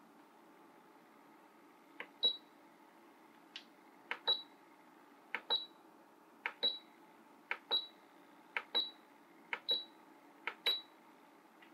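Asakuki 500 ml essential oil diffuser's light button pressed repeatedly, about once a second. Each press gives a click and then a short high beep as the lamp steps to the next colour.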